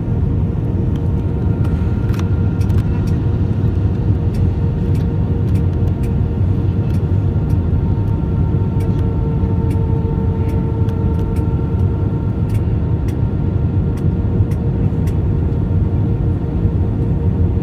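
Steady cabin roar inside an Airbus A320 on final approach with landing gear and flaps extended: rushing airflow and the engines at low approach power, with a few steady hums that sag slightly in pitch midway and faint scattered ticks.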